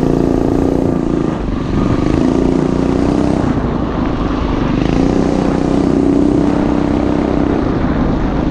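Mini bike's small single-cylinder four-stroke engine running under throttle on a trail ride. Its pitch rises and falls as the throttle opens and eases, with brief let-offs about a second and a half in and again around four seconds.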